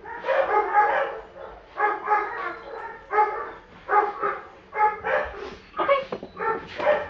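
German Shorthaired Pointer giving a string of short barks and yips, about a dozen calls at one or two a second.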